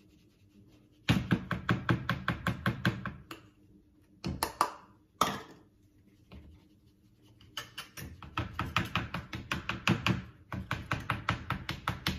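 A metal flour sieve is shaken and knocked against a stainless steel mixing bowl while flour is sifted. It gives fast runs of rattling metal taps, about seven a second, in bursts of one to three seconds with short pauses between.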